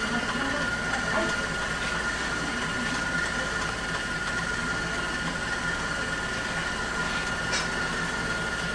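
Steady mechanical hum of kitchen machinery, with a constant high whine running through it and a faint tick near the end.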